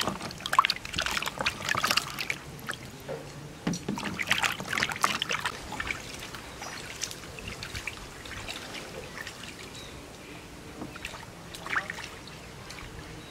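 Hands washing celery and carrots in a plastic basin of water: splashing and sloshing, busy for the first few seconds, then quieter with a splash now and then.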